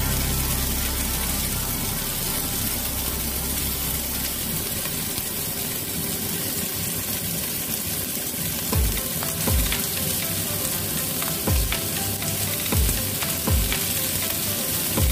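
Chicken wings sizzling steadily as they fry in oil in a wok. In the second half, chopsticks turning the pieces give several short knocks against the wok.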